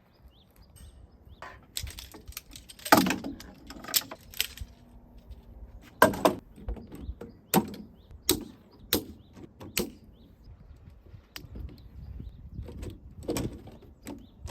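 A series of irregular knocks, clicks and clatters from objects being handled, with light rustling between them; the loudest come about three seconds in and around six seconds in.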